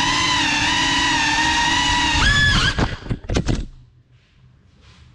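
GEPRC Cinelog 35 cinewhoop's motors and ducted props whining at a steady high pitch, then jumping up and stuttering in a few short bursts as the quad crashes, and cutting off about three and a half seconds in.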